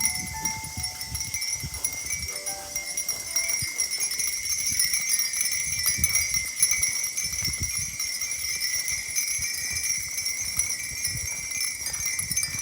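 Cicadas shrilling in a steady summer chorus, a continuous high buzz, with an irregular low rumble of wind on the microphone underneath.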